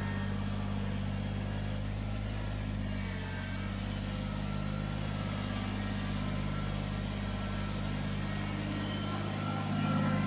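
Kubota BX23s tractor's three-cylinder diesel engine running steadily, with a low, even drone.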